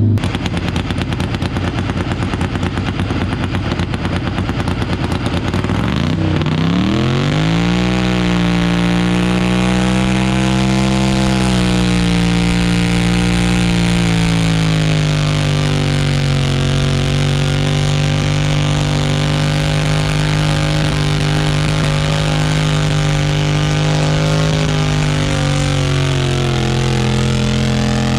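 Modified garden pulling tractor's engine running hard under load while pulling a weighted sled. It revs up sharply about six seconds in, then eases down a little and holds a steady pitch for the rest of the pull.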